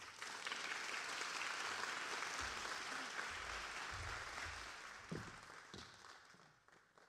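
Small audience applauding, starting at once and dying away over the last few seconds.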